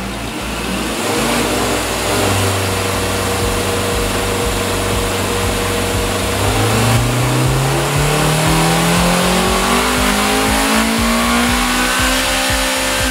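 Honda B18C5 1.8-litre VTEC inline-four running on a chassis dyno: it holds a steady speed, then revs up steadily under full throttle for the rest of the pull. It breathes through the factory Civic Si airbox, which the tuner says can be heard restricting the engine at high rpm.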